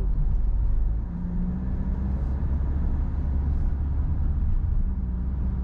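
Car driving: a steady low rumble of engine and road noise, with a low hum that comes in about a second in.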